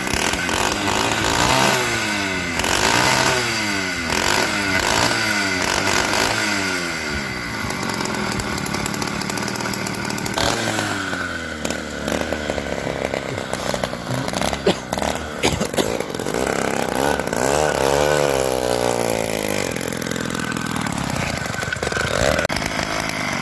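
80cc two-stroke bicycle engine kit on a motorized chopper bicycle running, revved up and down several times in quick succession during the first several seconds. It then runs at a steadier pitch under way, with another rise and fall in pitch about two-thirds of the way through.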